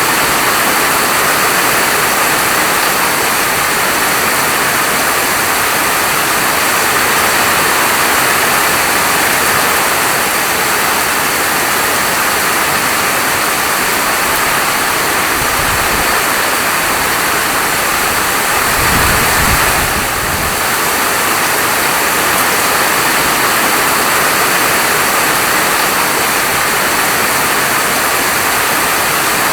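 Steady, dense hiss of heavy falling rain. Two brief low rumbles come through about halfway in.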